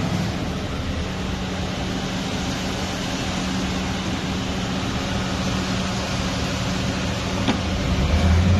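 Steady machine noise: a continuous rushing sound with a constant low hum. A deeper rumble swells near the end.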